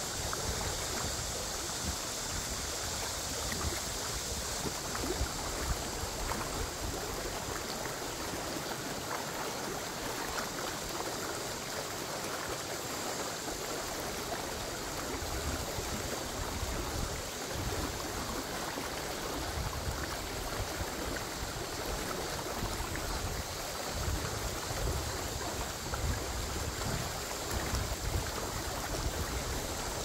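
A rocky mountain stream rushing steadily over and between boulders, with a low rumble coming and going.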